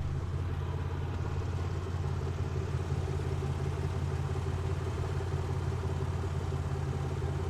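Airbus A350 engines heard as a steady low drone with a constant hum, the even background noise of a jet airliner.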